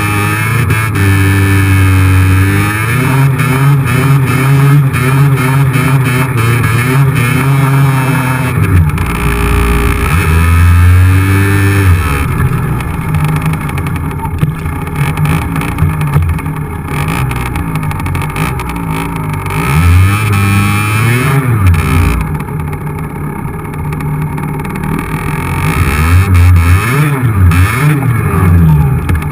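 50cc two-stroke motorcycle engine under way, its revs repeatedly climbing and dropping as the bike is ridden, easing off briefly a little over a third of the way in and revving up again near the end.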